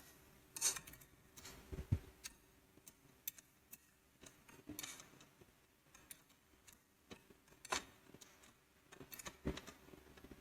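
Scattered light clicks and taps of small metal parts as the magnetic connector's spring is loosened by hand, a few isolated ticks several seconds apart over near-quiet.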